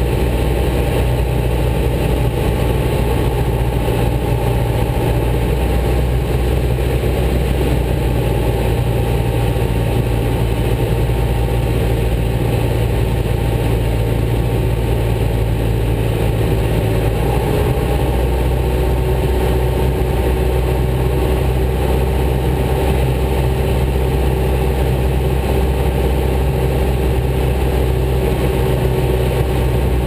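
Piston engine and propeller of a single-engine light aircraft droning steadily, heard inside the cabin, its pitch shifting slightly a little past halfway.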